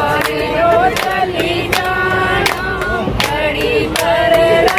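A group of women and men singing a Hindi devotional bhajan together, women's voices leading, with steady hand clapping keeping the beat.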